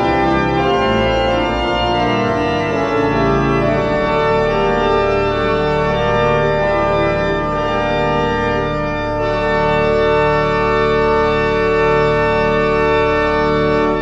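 Pipe organ playing full sustained chords, the harmony shifting every few seconds.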